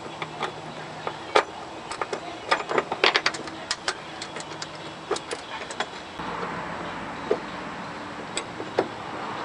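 Irregular sharp metallic clicks and clinks of hand tools and bolt-and-washer hardware being handled during rear suspension work, densest a couple of seconds in. A steady hiss comes up about six seconds in.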